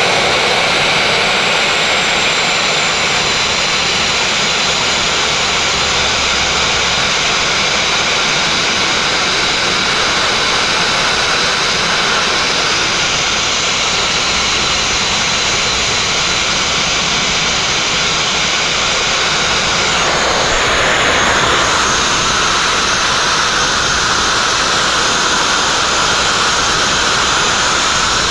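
Abrasive blast nozzle running continuously: a loud, steady hiss of compressed air and grit striking the steel hull of a narrowboat as it strips the old coating. The sound shifts slightly about twenty seconds in.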